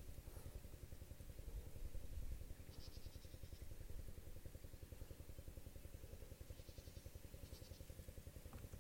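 Faint steady low throbbing of an engine running at an even pace, with two brief high rapid trills over it, about three and seven seconds in.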